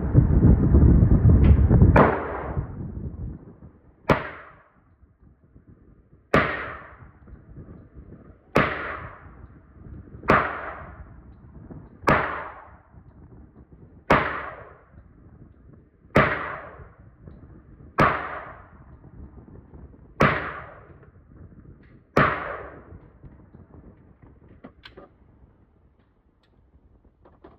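Gunshots fired in slow, steady succession, about a dozen, roughly one every two seconds, each sharp crack trailing off in a brief echo.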